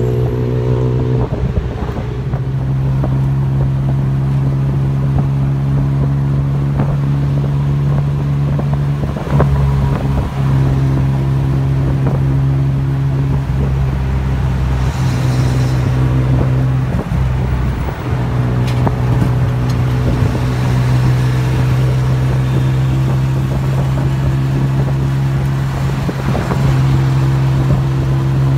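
Tuk-tuk's small engine running steadily under way, heard from the open passenger seat with road and wind noise. Its pitch shifts a few times as it changes speed.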